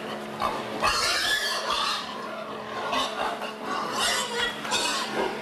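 Domestic pigs in a pen grunting, a run of short, irregular calls overlapping one another.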